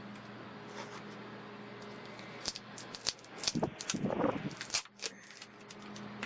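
Handling clicks and scrapes from a sunscreen mist spray bottle, then a few short sprays of mist about four and a half seconds in.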